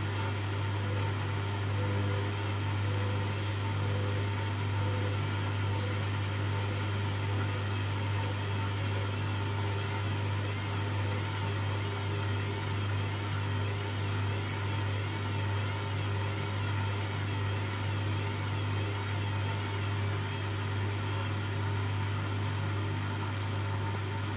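Hoover washing machine running with a steady motor hum and a slightly wavering whine as the drum struggles to reach spin speed.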